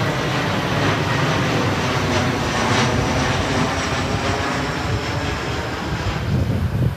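Twin-engine jet airliner passing low overhead: loud, steady engine noise with a thin high whine from the engines.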